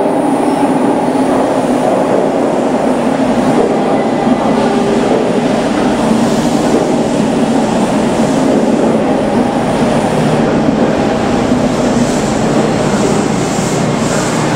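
Toei Oedo Line 12-600 series linear-motor subway train pulling into an underground station platform and slowing to a stop. It gives a loud, steady rumble of wheels and running gear, echoing in the station box.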